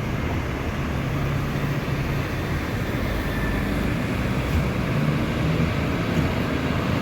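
Large bus engine running at low revs: a steady low rumble with no horn.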